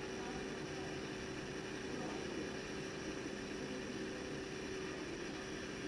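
Steady low hum and hiss of room background noise, with a few faint steady tones and no distinct events.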